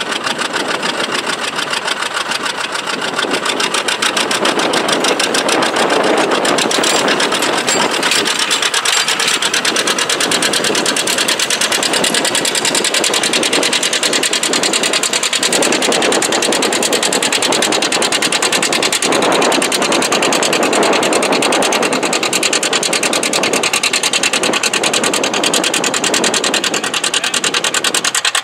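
Two-cylinder John Deere tractor engine running steadily under load while pulling a plow, with an even, rapid beat.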